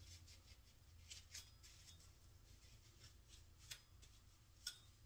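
Near silence: a steady low room hum with a few faint clicks, the clearest two in the second half.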